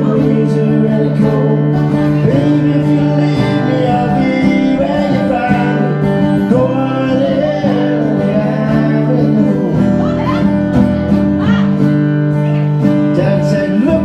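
Acoustic guitar strummed in a country song, with a solo voice singing over it.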